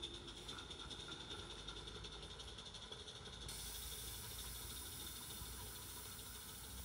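Faint rolling of a garden-scale model train's wagons along the track as they pass, with a thin high whine and fine ticking that stop about halfway through, over a steady hiss.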